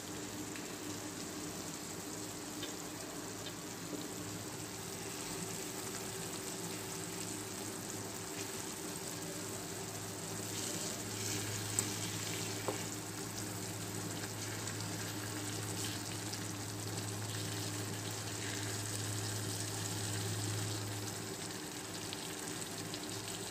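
Hilsa pieces in a thick mustard-and-poppy-seed gravy sizzling steadily in a nonstick wok as they are turned over, with a couple of light spatula taps about halfway through.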